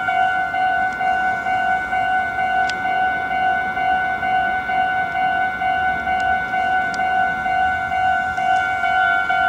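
Japanese railway level crossing's electronic warning bell ringing steadily. It is a high, ringing ding with overtones, repeating about twice a second.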